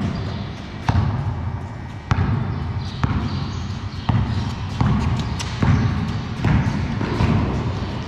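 Basketball bouncing on a bare concrete floor, about once a second. Each bounce is a sharp knock that echoes through a large, empty concrete hall.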